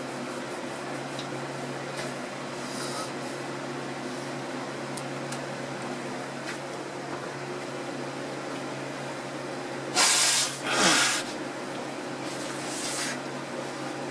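Steady low hum, like a fan or air conditioner running in a small room. About ten seconds in come two loud, short rushing noises in quick succession, then a fainter one a couple of seconds later.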